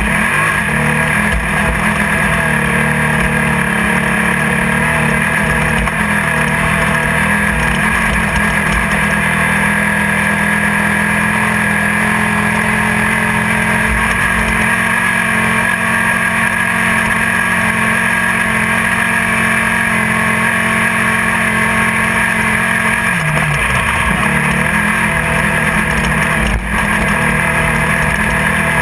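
Class 1600 desert race buggy's air-cooled 1600 cc VW engine running hard under load, heard inside the car over steady wind and road noise. The engine note dips about 23 seconds in and climbs back a couple of seconds later.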